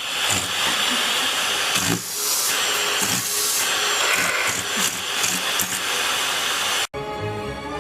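Vacuum cleaner running with a steady loud rushing hiss that shifts a little in level, cut off suddenly about seven seconds in, where music begins.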